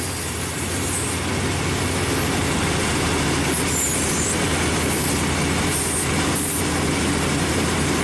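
Chevy 5.7-liter V8 idling steadily, with an even hiss of air being drawn through the unplugged PCV valve. The valve is stuck open and acts as a vacuum leak.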